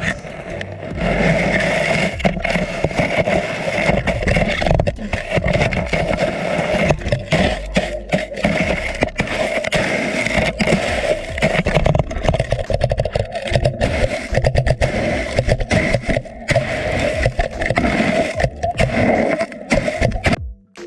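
Loud rushing and scraping water noise picked up by an underwater camera, thick with crackling clicks, cutting off suddenly at the very end.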